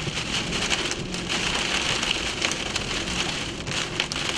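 Heavy rain pelting the storm-chase vehicle: a steady dense hiss with many sharp individual drop impacts.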